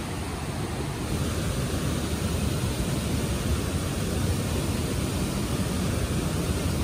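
Rushing whitewater of a mountain river close by, a steady, even rush that gets a little louder about a second in.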